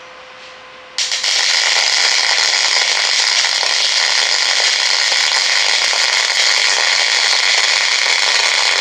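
MIG welding arc on quarter-inch steel plate: a loud, steady crackle that starts abruptly about a second in and cuts off near the end as the trigger is released.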